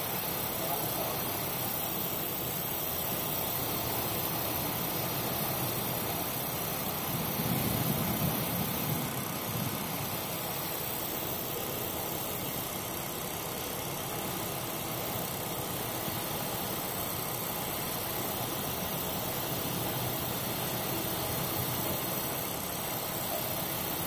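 Steady noise of storm wind and sea heard on board a container ship pitching through heavy waves, with a low rumble underneath that briefly swells about seven seconds in.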